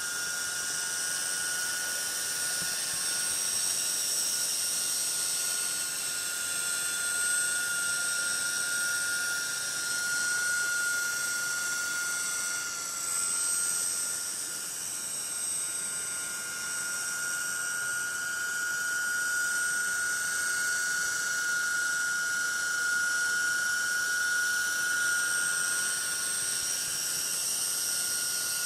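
Model coaxial helicopter hovering at slow rotor head speed: a steady high motor-and-gear whine, its pitch wavering slightly and dipping briefly about halfway through.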